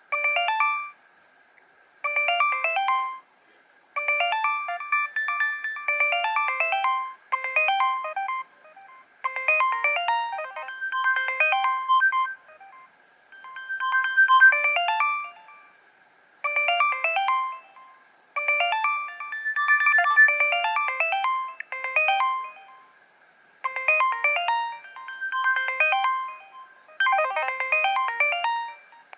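Nokia 3100 mobile phone playing one of its built-in ringtones: a synthesised melody in short phrases of quick notes, separated by brief pauses. A faint steady high whine runs underneath.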